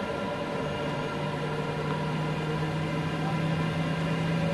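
Boeing 737-800's CFM56 jet engines idling, heard inside the passenger cabin as a steady hum with several steady tones; a lower steady tone comes in about half a second in and holds.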